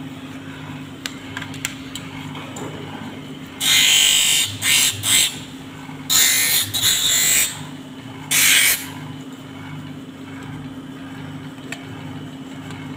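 Hand lens edger's motor running with a steady hum, and five bursts of harsh grinding between about four and nine seconds in, each half a second to a second and a half long. They come as the edge of an oversize photochromic glass lens is pressed against the spinning wheel to grind it down to fit the frame.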